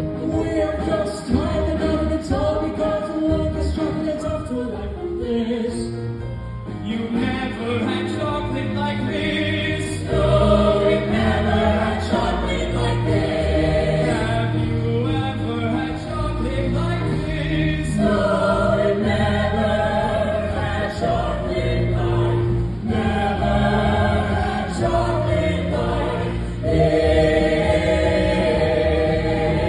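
Song with group singing, many voices together like a choir, over a steady instrumental backing.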